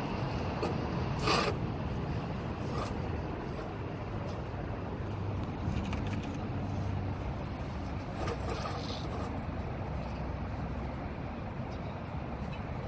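A steady low mechanical rumble, with one short sharp clack about a second in and a few fainter clicks later.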